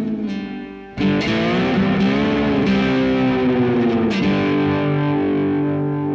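Intro music on distorted electric guitar. It dips briefly and comes back in loudly about a second in, with notes bending up and down, then settles into a held chord.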